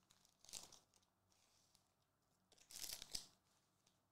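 Foil trading-card pack wrappers crinkling and tearing open by hand, in two short bursts about half a second and three seconds in.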